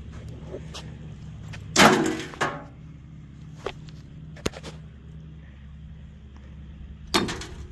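Broken chunks of stone picked up and tossed into a loaded wheelbarrow: two loud clattering crashes, about two seconds in and near the end, with a few sharp knocks between, over a steady low hum.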